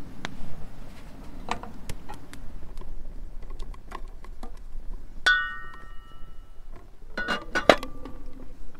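Wooden kindling sticks knocking and clattering against a metal samovar as its firebox is fed: sharp dry clicks, a ringing metal clink about five seconds in, and a quick cluster of ringing clinks near the end.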